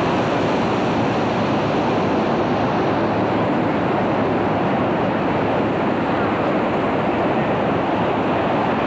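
A steady rush of wind on the camcorder microphone, mixed with the noise of surf breaking on the beach.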